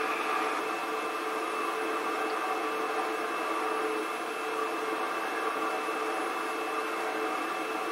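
Steady hum of a ship's machinery, an even drone with a few constant tones in it.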